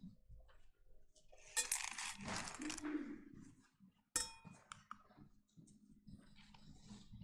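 Soft rustling and shuffling, then a single sharp clink about four seconds in that rings briefly.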